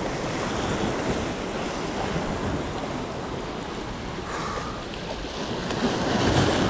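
Sea waves washing and surging, with wind buffeting the microphone; the surf swells louder near the end.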